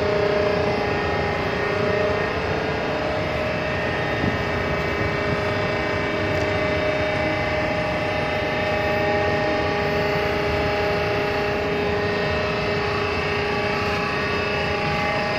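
Rescue-boat davit winch running steadily, a continuous machine hum with several steady whining tones over a noisy background.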